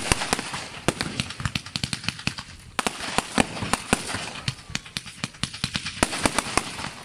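Fireworks display: a dense, irregular run of sharp bangs and pops from shells going off one after another, over a constant crackling hiss.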